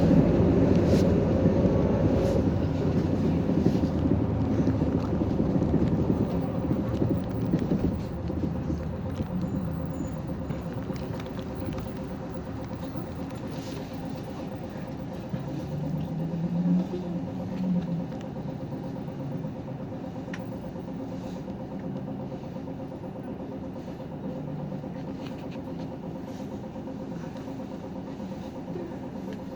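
City bus heard from inside the cabin while under way: engine and road noise that gradually fades as the bus slows, with a brief rise and fall in engine pitch a little past halfway, settling toward idle near the end.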